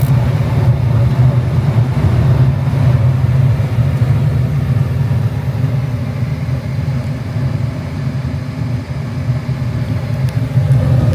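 A gas furnace running, with its inducer fan motor spinning and the blower fans on, making a steady low-pitched drone. The inducer motor is now turning properly rather than only humming.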